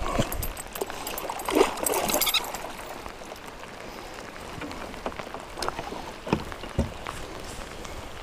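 A muskie splashing and thrashing in the water beside a kayak for the first couple of seconds, over a steady heavy downpour of rain on the lake. A couple of sharp knocks come later.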